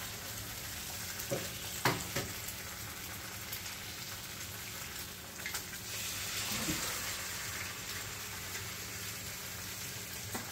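Duck eggs frying in bacon grease in a skillet: a steady sizzle, with a few light clicks and knocks.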